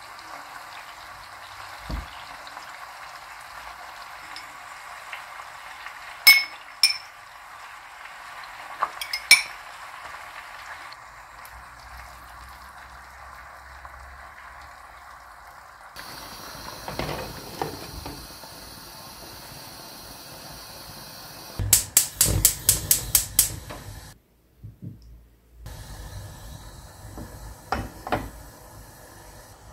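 Cooking sounds on a gas stove: a steady hiss from the pan of rice, broken by a few sharp clinks of a metal utensil against the pan as steam holes are poked into the rice. Then a pan of sliced onions frying, with a hissier sizzle and a quick run of about eight clinks.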